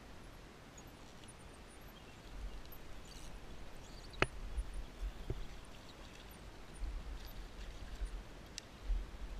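Outdoor riverside ambience: an uneven low rumble of wind on the microphone, faint high chirps, and three sharp clicks, the loudest about four seconds in.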